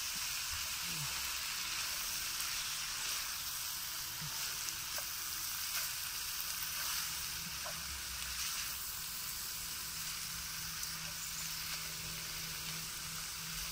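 Stir-fried noodles and vegetables sizzling steadily in a nonstick frying pan, with a few faint clicks and scrapes from a plastic spatula stirring them.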